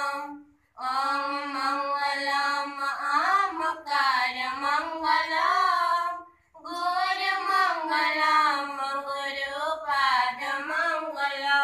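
A group of schoolchildren, mostly girls, singing a prayer song together in unison, with long held, gliding notes. The singing breaks off briefly twice, about half a second in and about six seconds in.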